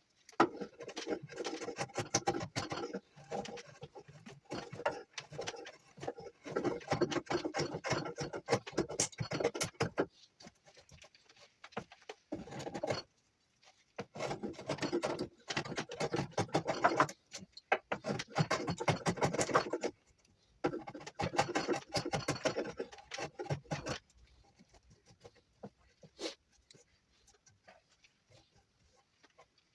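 Knife whittling juniper wood: runs of quick, scraping cuts lasting a few seconds each, with short pauses between them, then only an odd click near the end.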